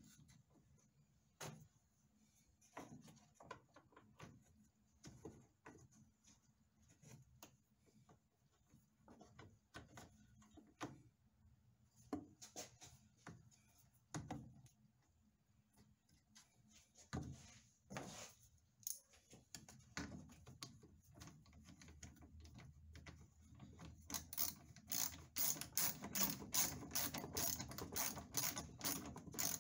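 Plastic clicks and rustling of hands fitting wiring and a wiring clip back onto a plastic radiator cooling-fan shroud, with scattered single clicks, then a fast run of clicks near the end.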